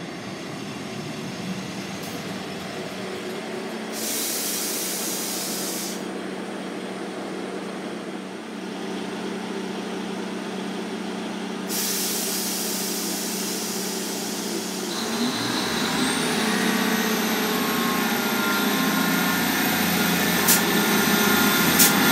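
Class 158 diesel multiple unit pulling into the platform, its diesel engine running and growing louder as it draws near. Two spells of air hissing, about 4 seconds in and about 12 seconds in, are followed by a high whine that rises steeply about 15 seconds in and then holds.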